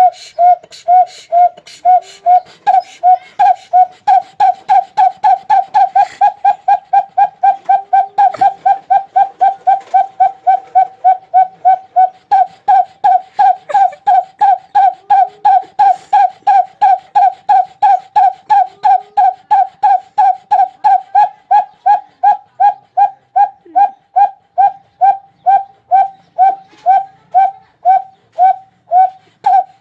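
A man imitating with his mouth the put-put of an old well-side water-pumping engine, as if just cranked into life: a steady run of short whistled pulses, about two to three a second.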